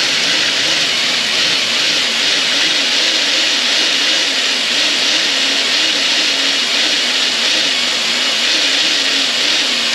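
Electric drill running continuously as its bit bores through a small, stubborn head-unit mounting bolt. The motor's pitch wavers up and down under the load, and it stops at the very end.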